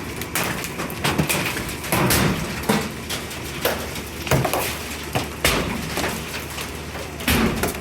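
Hailstones, pea to quarter size, pelting hard surfaces over a steady rush of falling hail and rain, with sharp, irregular cracks and thuds about once or twice a second as bigger stones hit.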